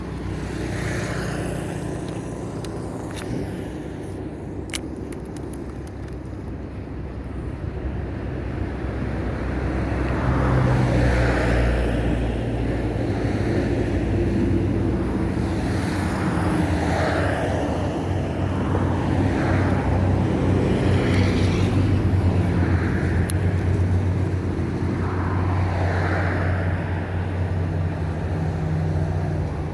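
Road traffic going by: car and truck engines humming, with vehicles passing one after another in swells that rise and fade. It gets louder about a third of the way through and stays busier.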